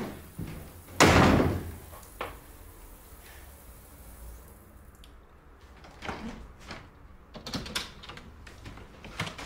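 Apartment front door shutting with one loud thud about a second in, followed by a few fainter clicks and knocks.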